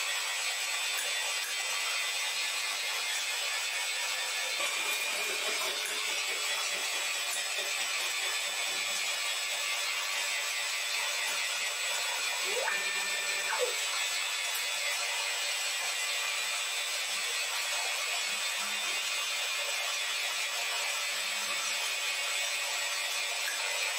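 WM210V mini metal lathe running steadily, its spindle at about 620 rpm. About halfway through, the electronic lead screw's stepper motor whines up in pitch, holds for about a second and winds back down as the carriage is jogged with the joystick.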